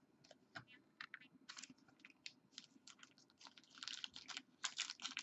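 Faint, irregular clicking and crinkling of trading cards and their pack wrappers being handled, thickening into a quick run of crackles near the end.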